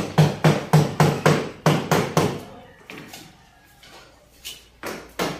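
Rapid hammer strikes during building renovation work, about four a second for two and a half seconds, then a pause and a few more blows near the end.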